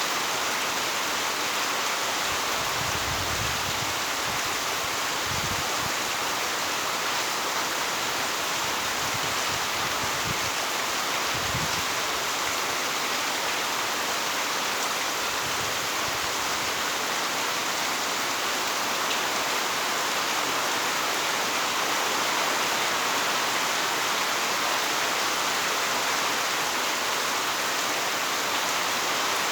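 Heavy rain falling steadily, an even, dense hiss, with a few brief low rumbles in the first half.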